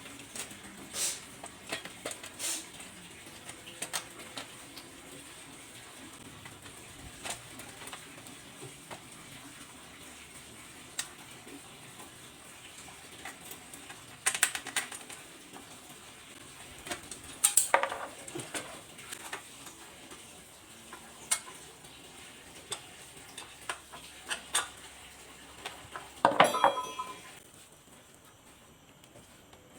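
Irregular metallic clinks and knocks of metal parts and hand tools being handled, with louder clusters of clanks about 14, 18 and 26 seconds in.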